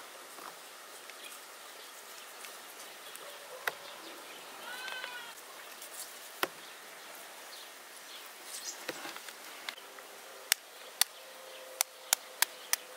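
Faint knife scraping while boiled beets are peeled, with a few isolated clicks and a brief high call about five seconds in. From about ten seconds, a run of sharp clicks comes faster and faster as boiled eggs are tapped to crack their shells.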